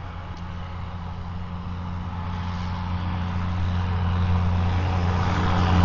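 An engine drawing closer: a steady low drone that grows louder throughout.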